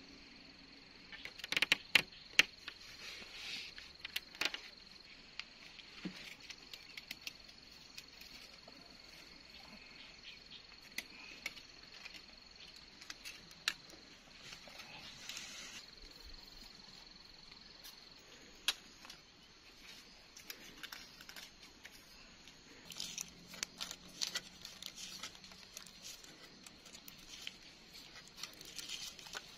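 Wooden poles and sticks clicking and knocking as they are handled and lashed onto a pole frame, in scattered sharp clicks with a loud group a couple of seconds in and a busier cluster near the end. A steady high insect whine runs underneath.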